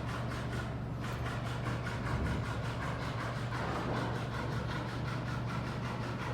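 Steady low machine hum with a fast, even ticking of about four ticks a second, clearest in the first second.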